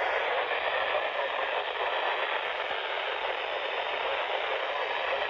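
Steady radio static: an even hiss from a radio receiver's speaker, no signal or voice coming through.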